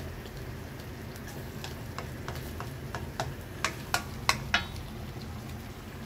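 A spatula stirring chunky chicken curry in a stainless-steel pan: scraping with a run of light clicks and knocks against the pan, the loudest four or five coming in quick succession a little past the middle.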